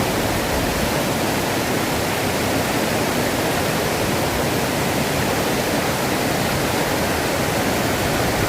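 Steady rush of river water, loud and even throughout.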